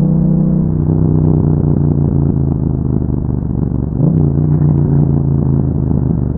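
Yamaha MT-07's 689 cc parallel-twin engine running through an Akrapovic exhaust with a dB killer fitted, a steady, low-revving exhaust note while riding. The revs ease off slightly just after the start, dip briefly about four seconds in and then pick up again.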